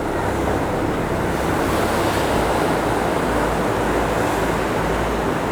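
Heavy surf: big rolling waves breaking and washing against a pier in rough water, a steady rush that swells slightly about a second and a half in.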